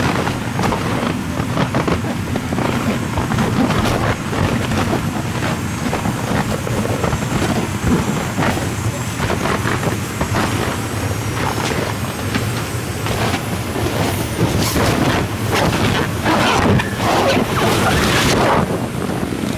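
Loud, steady rumble and rush of air from the electric blower that keeps the inflatable castle inflated. In the last few seconds there are scattered knocks and rustles from moving over the vinyl.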